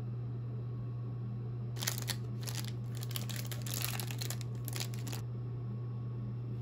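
White cotton fabric rustling and crinkling as hands handle it during hand-sewing, from about two seconds in to about five, with two sharp little clicks at the start. A steady low hum sits underneath.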